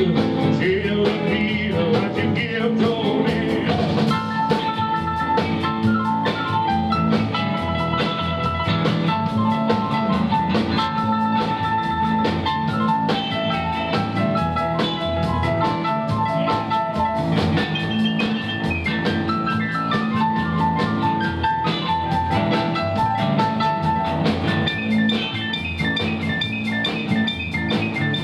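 Live rockabilly band playing an instrumental break: a stage piano solo of quick repeated high notes and runs over double bass, drums and electric guitar with a steady beat.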